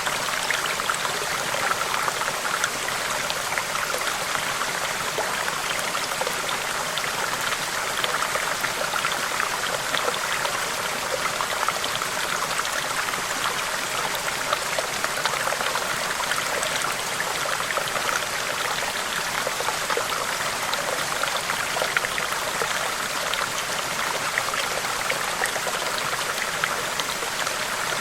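Steady flowing water, as of a stream, with many small splashes and drips all through it.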